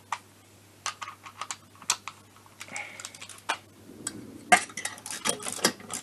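Hand ratchet clicking and small metal clinks as a stud-setting tool is worked on a scooter crankcase stud. The clicks come a few at a time at first, then a denser run about four and a half seconds in as the ratchet is worked.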